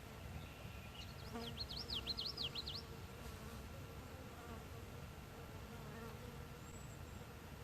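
A flying insect buzzing faintly, with a bird's short song of quick rising-and-falling whistled notes about a second in, over a low outdoor rumble.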